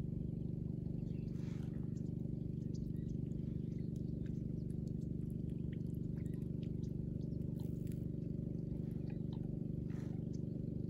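A motor running steadily, a low hum with even overtones that does not change, with faint scattered ticks over it.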